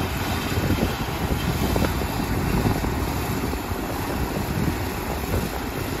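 Kubota rice combine harvester running steadily as it cuts and threshes standing rice, a dense low engine and machinery hum without letup.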